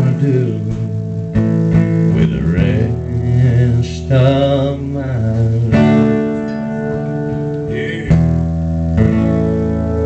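Two acoustic guitars strumming chords and letting them ring, new chords struck about every two seconds. These are the closing bars of the song.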